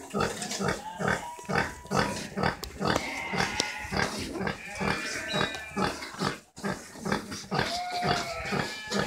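Pigs grunting in a quick, steady rhythm of about three grunts a second: a sow nursing her piglets, the rhythmic nursing grunts that go with suckling. A few brief higher squeals are mixed in.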